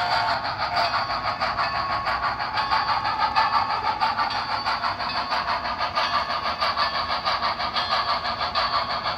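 HO-scale model of Frisco 2-8-0 steam locomotive #1630 running, its onboard sound system playing a quick, even steam chuff through a small speaker.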